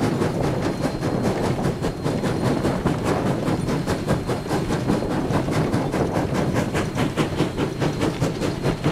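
Steam exhaust beats ("stack talk") from Sierra Railway #3, a 4-6-0 ten-wheeler steam locomotive working up a grade as it regains speed. The chuffs come in a quick, even rhythm that grows crisper from about three seconds in, over a steady rumble.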